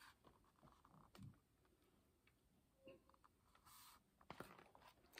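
Near silence with a few faint clicks and soft paper rustles as an open hardcover picture book is held up and moved by hand.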